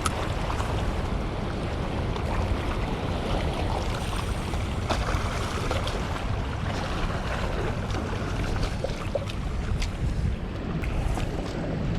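Steady rush of water pouring through a dam spillway, mixed with wind buffeting the microphone, with a few faint clicks.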